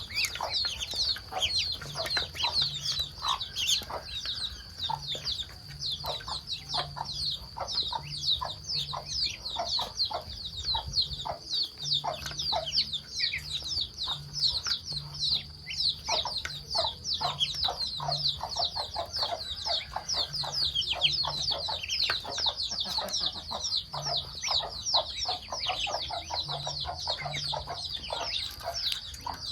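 A flock of poultry feeding, taken for ducks eating: a continuous chorus of short, high, falling peeps mixed with many quick pecking clicks.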